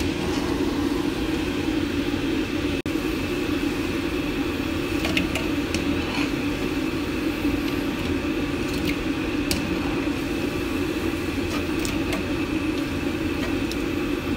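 Steady low mechanical hum of even loudness, with a few faint light clicks.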